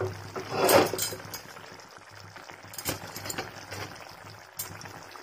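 Thick paneer masala gravy bubbling in a kadai: scattered soft pops and spits, with a louder rush of noise just under a second in.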